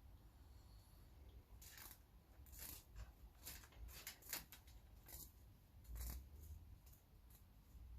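Faint, irregular rustles and clicks of copper cable and stripped insulation being handled.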